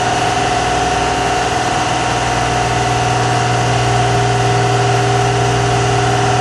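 Sideloader trailer's hydraulic power pack running steadily with a constant whine, driving the extendable rear chassis section out by remote control.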